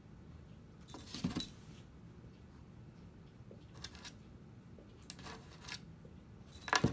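Dog collar tags jingling in short bursts as a small dog jumps and scrambles, about a second in, more faintly around four and five seconds, and loudest near the end.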